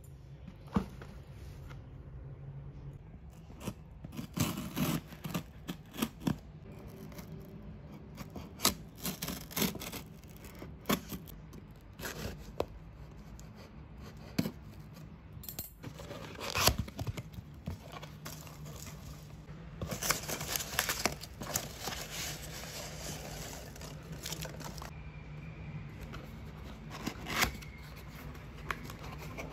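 Packaging being handled and opened by hand: rubbing, tearing and scraping of paper or cardboard, with many scattered short taps and clicks.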